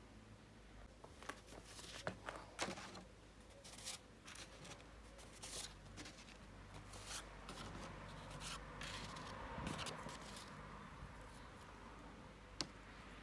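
Quiet rustling and sliding of thin printed card sheets being laid out on a wooden table, with scattered light taps and clicks.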